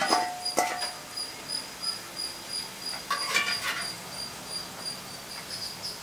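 Ivy gourd pakodas frying in hot oil in a stainless-steel kadai, with the slotted spoon clinking and scraping against the pan near the start and again about three seconds in. A steady, high, pulsing chirp runs underneath.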